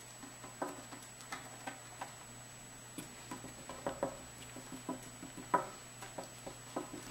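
Light, irregular tapping and scuffing of a Persian kitten's paws and a wand toy's stick on a placemat-covered table as the kitten bats at the toy, with one louder tap about five and a half seconds in.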